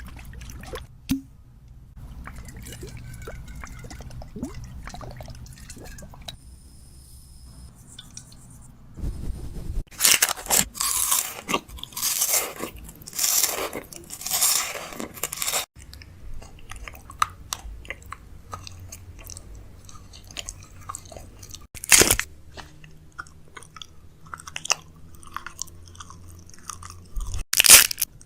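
A person biting and chewing crunchy fried food close to the microphone, with a run of loud crunches a third of the way in and two more sharp crunches later on.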